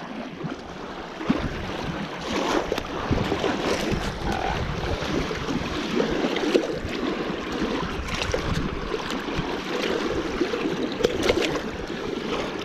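Small waves and boat wakes lapping and sloshing against a rocky lake shore, with wind buffeting the microphone and a few short, sharp sounds.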